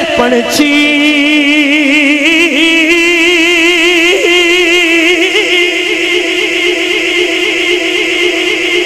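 A man singing one long held note of a Punjabi Sufi kalaam into a microphone, with a regular wavering vibrato.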